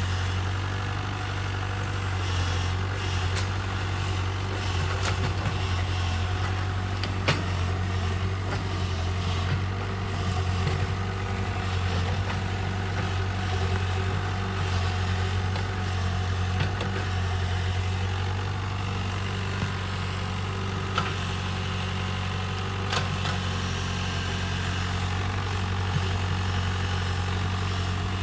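Kobelco excavator's diesel engine running at a steady low drone, with a few sharp knocks from the machine along the way.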